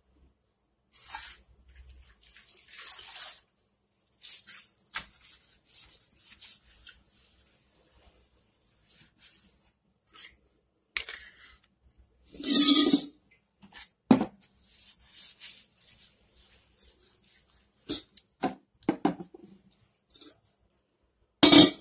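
Wet cloth wiping a kitchen countertop in short, scattered swishes, with a few knocks and clatters as things on the counter are moved; the loudest clatter comes about halfway through and another short loud one near the end.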